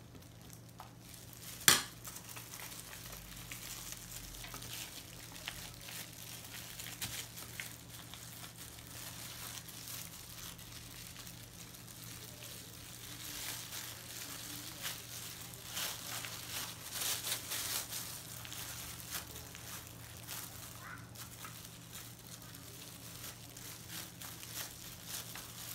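Clear plastic food-prep gloves crinkling and rustling as hands spread filling on wet rice paper and roll it on a plate, over a steady low hum. One sharp clink of a metal spoon against a dish about two seconds in.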